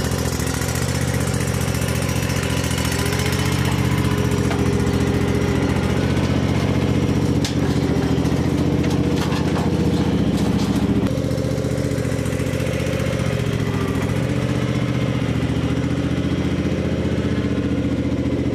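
Gravely commercial mower's engine running steadily while the mower is driven, with a few clicks about seven seconds in and a slight drop in the engine note about eleven seconds in.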